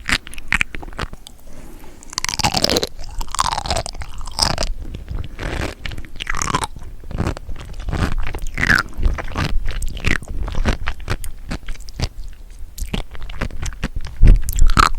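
A person chewing seafood, with crunchy crackles and wet, squelching mouth sounds.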